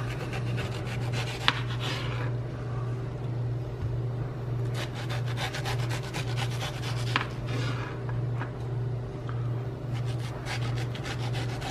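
A kitchen knife saws back and forth through a mango and scrapes along its hard stone, making repeated rasping strokes with a few sharp clicks. A steady low hum runs underneath.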